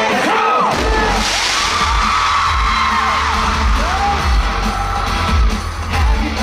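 Live K-pop music played loud over a concert sound system, with a heavy bass beat that drops out briefly and comes back in just under a second in, and fans screaming and cheering.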